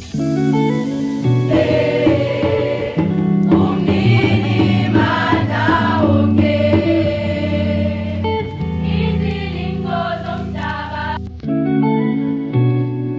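Gospel-style choir singing over sustained chords, breaking off briefly and starting again about eleven seconds in.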